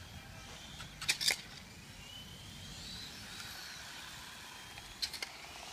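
Radio-controlled cars running laps, their motors giving a faint high whine that rises and falls as they speed up and slow down. There are a few sharp clicks about a second in and again near the end.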